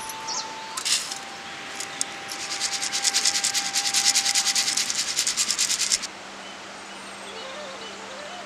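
Pounded rice flour being sifted through a steel sieve onto a brass plate: the sieve is shaken in rapid, even strokes, a scratchy rubbing that grows louder and then stops abruptly about six seconds in. A single sharp knock comes about a second in.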